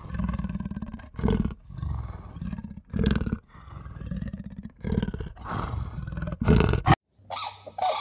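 An animal's repeated low, rough calls in a series of bouts, each about half a second to a second long. They cut off suddenly about seven seconds in.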